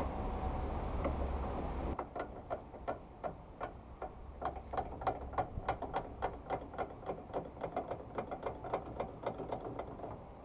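Trailer jockey wheel being wound by its top crank handle: a steady run of ticks from the turning screw mechanism, about four a second. For the first two seconds there is wind rumble on the microphone before the sound cuts over to the ticking.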